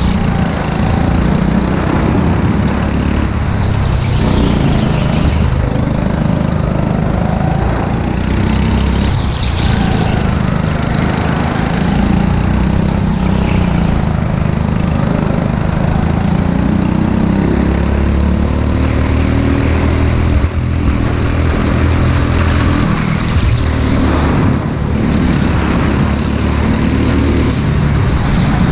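Go-kart's small engine running hard, heard close from onboard, its revs rising and falling through the corners.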